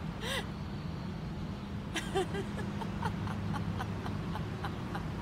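A woman's short, quiet stifled giggles, a few scattered through, over a steady low background hum.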